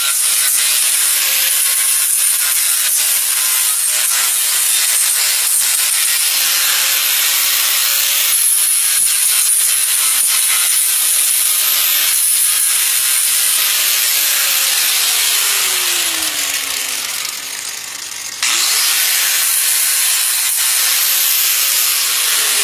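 Handheld angle grinder running steadily against a stamped metal sheet, grinding down spots to prepare the surface for paint. About two-thirds of the way in its pitch slides down and the level drops, then it comes back up abruptly at full level.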